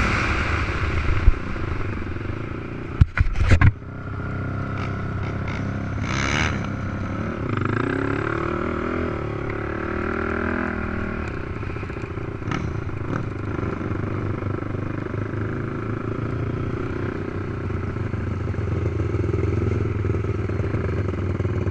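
450cc racing quad engines running and revving on a motocross track, their pitch rising and falling. A few loud knocks about three seconds in.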